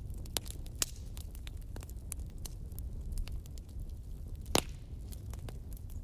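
Fireplace fire crackling: irregular sharp pops and snaps over a low steady rumble, with one louder pop about four and a half seconds in.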